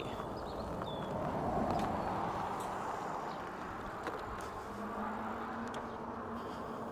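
Wind and road noise from a fat-tire e-bike ride, swelling briefly about two seconds in as a car coming up from behind passes. A faint steady low hum comes in around five seconds in.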